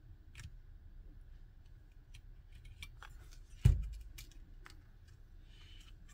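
Small clicks and taps of a router circuit board being handled and a SIM tray worked into its port, with one loud knock about three and a half seconds in as the board is moved on the bench.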